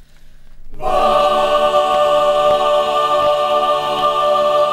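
A choir comes in about a second in and holds one steady chord.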